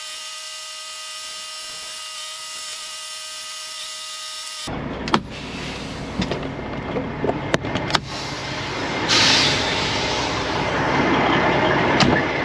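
A steady high-pitched whine for about the first four and a half seconds, then a semi truck's diesel engine running as it backs onto a loading dock, with several sharp clicks and a short loud hiss about nine seconds in.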